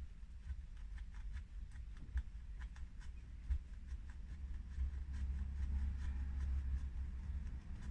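Light, irregular clicks and taps of small parts and tools being handled while fitting a sway bar to a radio-controlled car, over a low rumble.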